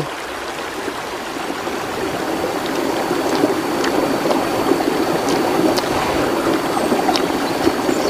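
Steady rush of water running over the rocks of a shallow mountain stream, growing a little louder after a couple of seconds, with a few light clicks on top.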